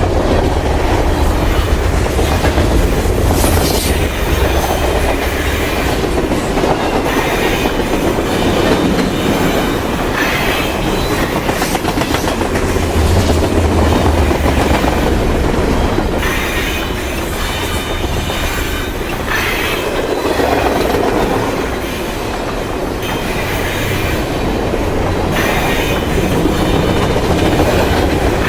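A train passing close by with a loud, steady rumble of wheels on the rails. Sharper brief noises come through every few seconds.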